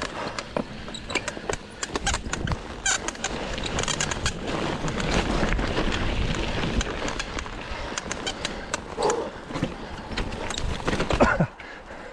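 Cannondale Scalpel full-suspension mountain bike with a Lefty fork riding down a dirt trail: tyres rumbling over the ground, with fast, irregular rattling, clicking and squeaking from the bike over the bumps. The squeaks show a bike in need of servicing. The noise drops off suddenly near the end.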